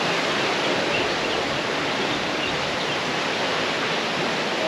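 Steady rush of river water flowing through an old water mill, an even noise that holds at one level throughout.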